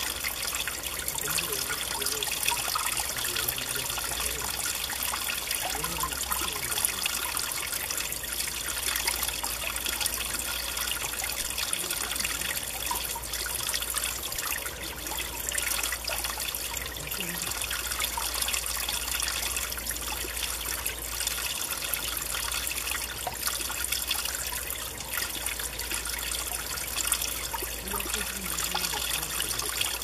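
Mountain valley stream flowing steadily, its water trickling and splashing without a break.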